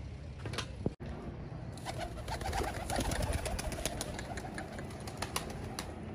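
Domestic pigeons cooing, with a fast scatter of wing flaps and claps from about two seconds in as a pigeon lands among the flock.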